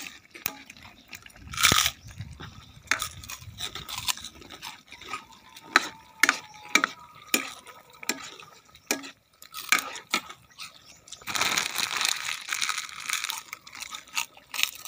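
Metal ladle stirring a thick mung bean stew in a metal pan, knocking and scraping against the pan in many short clinks. About eleven seconds in there are a couple of seconds of louder rustling, scraping noise.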